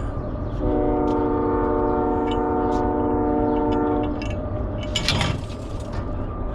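Train horn sounding one steady held chord of several tones for about three and a half seconds, over a low rumble. A short noisy burst follows about five seconds in.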